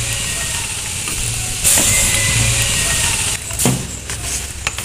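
Outdoor background noise: a steady low rumble with hiss, louder from about one and a half to three seconds in, and a short knock a little before the end.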